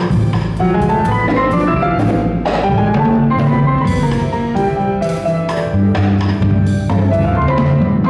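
Small jazz ensemble playing a slow bolero: a Kawai grand piano's chords and melody over a walking double bass, with a drum kit keeping time on cymbals and drums.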